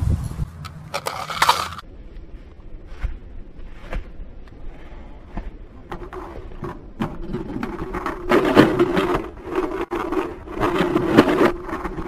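Lightning McQueen toy car rolling and scraping along a toy ramp track. A short clatter about a second in, scattered clicks, then a longer rolling scrape from about halfway that is loudest in two stretches near the end.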